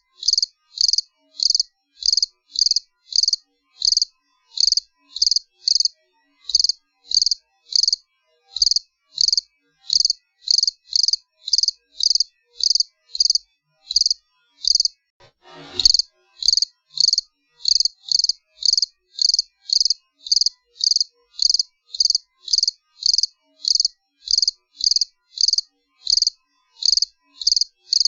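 A cricket chirping in a steady, even rhythm of short high-pitched chirps, about two to three a second. About halfway through the chirping pauses briefly, then a single sharp click, and the chirping resumes.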